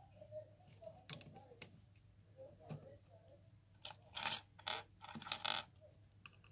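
Small plastic LEGO pieces clicking and rattling as they are picked out of a plastic parts tray and handled, with a louder burst of clattering about four seconds in.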